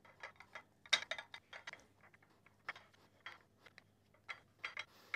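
Light, irregular clicks and taps of steel V-blocks and a paintbrush against a ceramic plate as cold bluing solution is brushed onto the blocks; the sharpest click comes about a second in.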